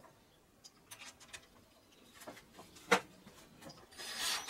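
Scattered light clicks and knocks of hand work on engine parts, with one sharp knock about three seconds in and a short rushing noise near the end.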